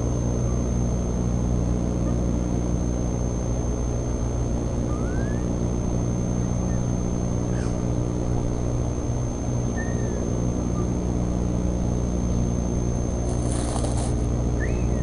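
A steady low hum with a constant thin high tone runs under the nest camera's sound. A few short, faint bird chirps come and go about five times. Near the end comes a brief rustle, as the incubating bald eagle bends down into the straw over its eggs.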